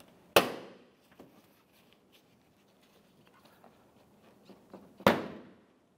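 Plastic front bumper cover of a 2013 Hyundai Elantra being pulled straight out of its clips at the fender: two sharp plastic snaps as the clips let go, one about half a second in and one about five seconds in, with faint rustling between.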